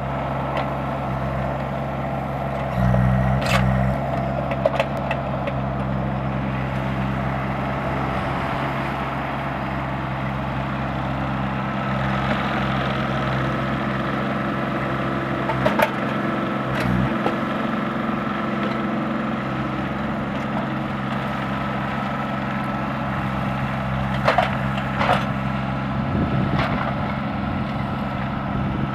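An engine running steadily while wood cracks and splinters, with several sharp snaps: a few seconds in, around the middle, and near the end.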